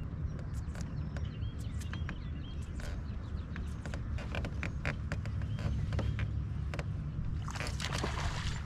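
Steady low wind rumble on the microphone out on open water, with scattered light clicks and ticks and faint high chirps. A short rush of hiss comes about a second before the end.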